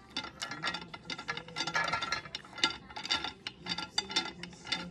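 Wooden beads clacking and rattling as they are pushed along the wires of a toddler's bead-maze toy: many quick, irregular clicks, with a denser rattle about two seconds in.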